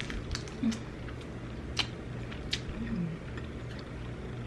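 Close-miked chewing, with scattered wet mouth clicks and lip smacks and two short low hums.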